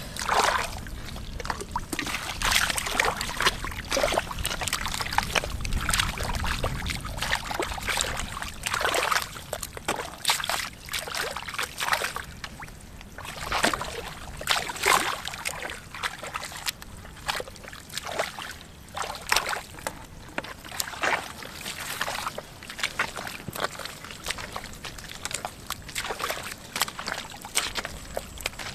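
Irregular splashing, sloshing and squelching of hands and bare feet moving through shallow muddy water and wet mud.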